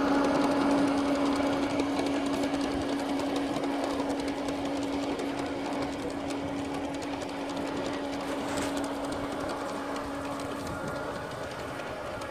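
LGB large-scale model diesel locomotive hauling a long freight train on garden-railway track: a steady hum with wheel rattle over the rail joints, slowly fading as the train runs away. The hum drops out a little before the end.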